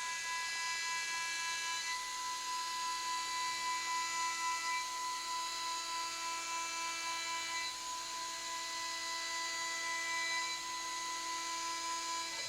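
High-speed CNC spindle running with a steady high whine while milling an aluminium part. Its higher overtones come and go as the cut changes.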